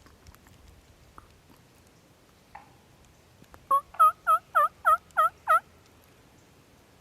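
Turkey yelping: a quick series of seven yelps, about three or four a second.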